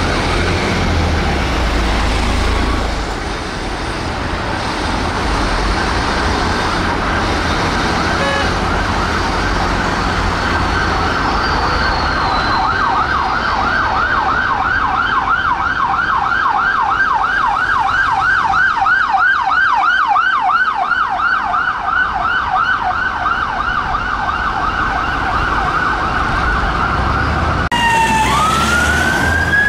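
Metropolitan Police Mercedes-Benz Sprinter bomb-disposal van's siren on a fast yelp, sweeping up and down several times a second over traffic noise. Near the end it cuts off abruptly and a different police siren begins a slower rising wail.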